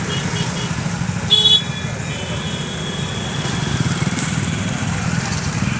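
Road traffic: a motor vehicle engine running steadily, a quick string of short high beeps at the very start, and a loud, brief horn honk about a second and a half in.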